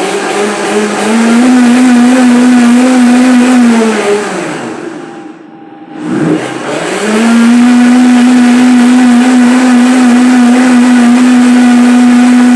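Countertop blender motor running on sorrel and water: it spins up to a steady whine, winds down and stops about five seconds in, then starts again a second later and runs steadily.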